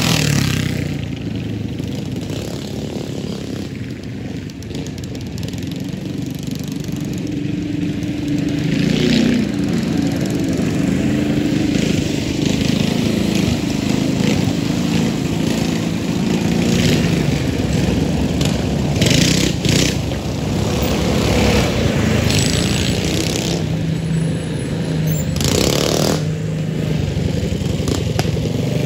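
Mini bike engines: one passes close at full throttle at the start, then small gas engines keep running and idling farther off, their pitch rising and falling as they are revved. A couple of short noisy bursts come about two-thirds of the way through and again near the end.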